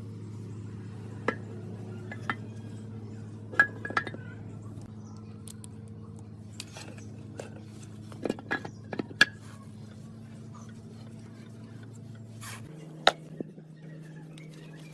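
Hard metal objects clinking and tapping in about nine sharp strikes, some in quick clusters, over a steady machine hum that shifts abruptly to a higher, quieter tone near the end.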